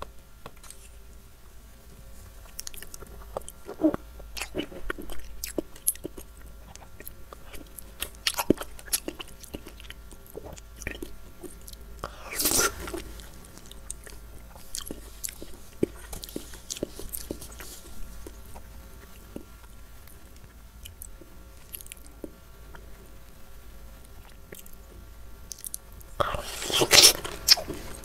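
Close-miked eating of soft, juicy fruit: wet chewing with small clicks and smacks. There is a louder bite about twelve seconds in and a longer, louder bite and chew near the end, into a piece of white dragon fruit.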